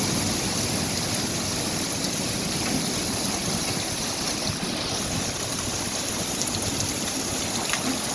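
Steady heavy rain pouring down, an even hiss with a few faint drip ticks.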